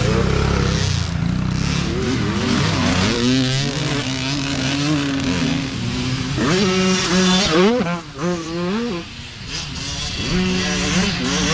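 Mini dirt bike engines revving up and down, their pitch rising and falling with the throttle. The engines ease off and grow quieter for a moment about eight seconds in, then pick up again.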